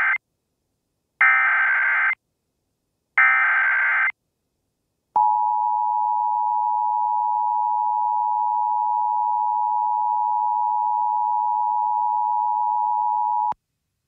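Emergency Alert System SAME header: the end of one burst of warbling digital data and then two more, each about a second long and a second apart. About five seconds in, the steady two-tone EAS attention signal (853 and 960 Hz) starts and sounds for about eight seconds before it cuts off sharply.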